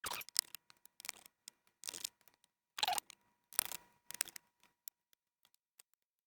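Small tools and parts clicking and scraping during laptop disassembly: a run of short ticks and brief scrapes, the loudest about three and three and a half seconds in.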